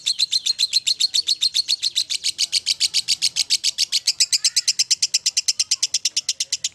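Lovebird 'ngekek': one long, unbroken, rapid chatter of sharp, high-pitched notes, about ten a second.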